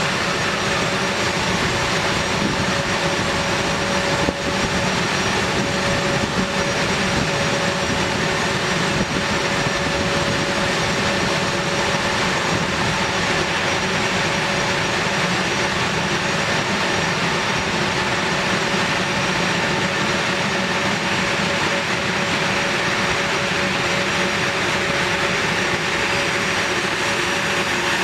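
The A-10 Thunderbolt II's two General Electric TF34 turbofan engines running at taxi power: a steady rush with a high whine held at an even pitch.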